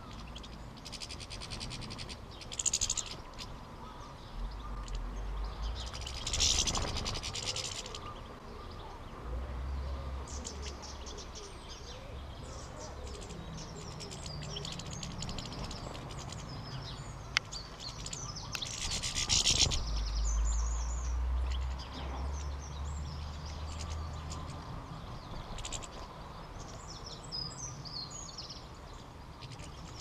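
European goldfinches twittering and chirping, with a few short, louder fluttering bursts as birds fly in and out, over a low wind rumble.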